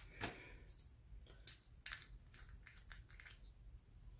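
Small plastic jars of nail rhinestones being handled on a tabletop: a series of faint, light clicks and taps as they are picked up and moved.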